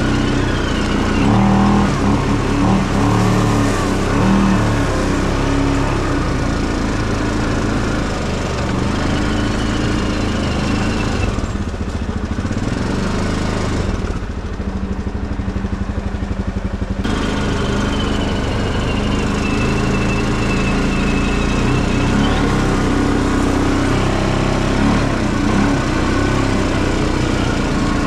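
Tractor engine running steadily under way. About halfway through it drops for a few seconds to a slower, duller beat, then picks back up.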